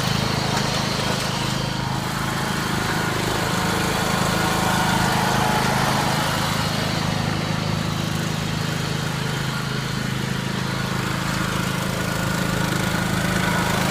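Riding lawn mower's engine running steadily as the mower is driven, with an even, unchanging hum.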